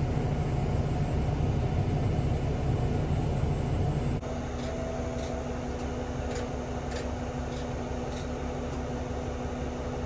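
A steady, low machine hum and rumble that drops suddenly about four seconds in to a quieter hum inside the truck cab, with light regular ticks about every half second or so.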